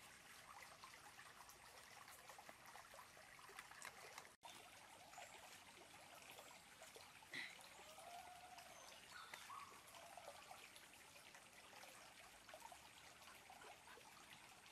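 Faint, steady trickle of a small forest stream, with a few short faint calls around the middle.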